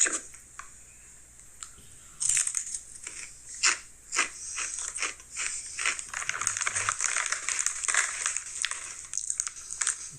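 A person biting into and crunching Ruffles queso cheese potato chips: irregular runs of sharp, crackly crunches starting about two seconds in.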